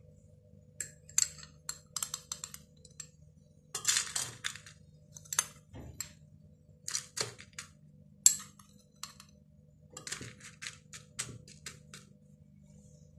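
Metal spoon clinking and scraping against glass bowls and a glass while scooping crushed digestive biscuits, with the crumbs rattling into the glass. The clinks come irregularly, with one longer crunchy rattle a few seconds in.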